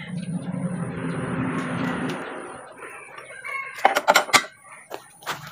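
A rooster crows for about two seconds. A little past the middle comes a quick run of sharp metal clanks, the loudest sounds here, as a hand tool strikes the rusty steel rear axle of a truck.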